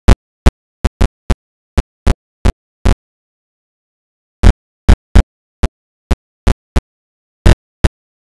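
Brief bursts of sound, about eighteen in eight seconds at uneven spacing, each cut off sharply with dead silence between them and a gap of about a second and a half near the middle: the audio track is chopped into fragments instead of carrying continuous sound.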